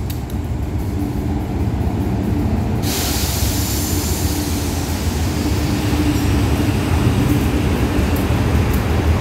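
A diesel locomotive hauling a passenger train pulls into the platform. Its engine rumbles low and steady, and about three seconds in a loud hiss of wheels and machinery joins it as the locomotive passes close by.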